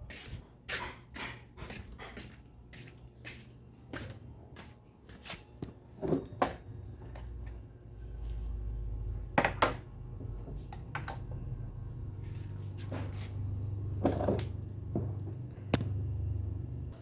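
Repeated clicks and knocks of small parts being handled during a blender repair, with a low steady hum that starts about eight seconds in.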